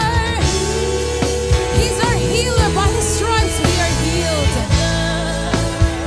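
Live gospel praise band playing: drum kit and keyboard, with voices singing runs that slide up and down in pitch.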